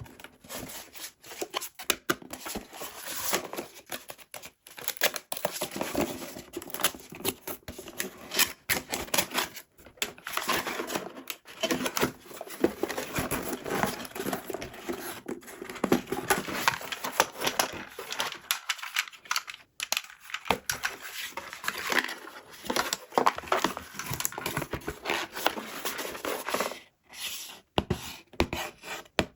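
Toy packaging being handled, crinkled and torn open: dense, irregular crackling and rustling with many sharp clicks, broken by short pauses.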